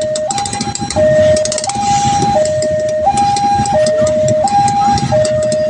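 Railway level-crossing warning alarm sounding a two-tone hi-lo siren, switching between a higher and a lower tone about every three-quarters of a second, with a rapid high ticking, over the rumble of road traffic.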